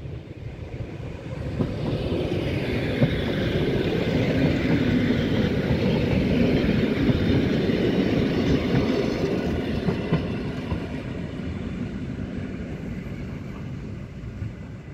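EN57 electric multiple unit passing close by: a loud rumble of wheels on the rails with a few sharp clacks over rail joints. It swells about two seconds in and fades slowly as the train moves away.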